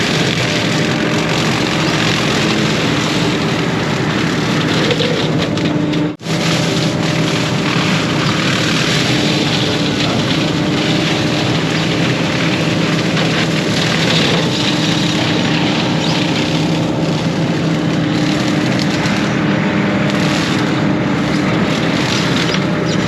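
Case 140 excavator's diesel engine running steadily under load, with its hydraulics and brush-cutting attachment working. The sound breaks off for an instant about six seconds in.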